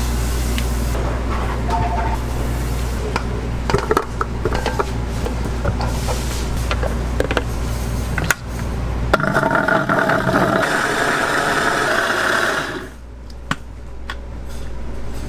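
A countertop food processor's motor starts about nine seconds in, runs steadily for about four seconds puréeing whole peeled kiwis, and stops suddenly. Before it starts there are scattered knife clicks from paring the kiwis over a steady kitchen hum.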